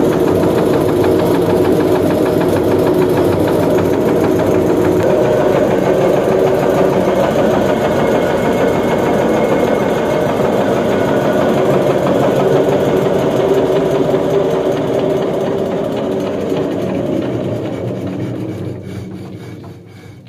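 Petter-type single-cylinder diesel engine driving a flour mill's belts and pulleys, running steadily. Over the last few seconds it slows and dies away as the engine is stopped.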